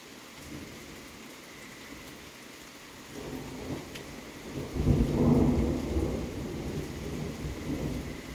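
Thunder rumbling over steady rain: the low rumble builds about three seconds in, is loudest a couple of seconds later, then rolls on and fades.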